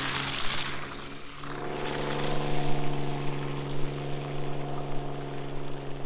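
Vehicle engine running at a steady speed, a constant droning hum that dips briefly about a second in, with tyre and wind noise in the background.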